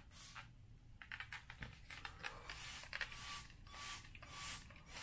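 Trigger spray bottle of alcohol-water mix misting, with short faint hissing bursts about once a second as the trigger is squeezed to wet down loose scenery material.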